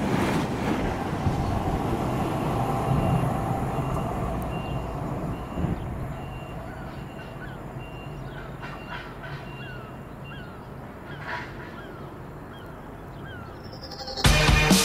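A series of short honking bird calls, goose-like, repeated over several seconds above a rushing noise that slowly fades. Music cuts in loudly near the end.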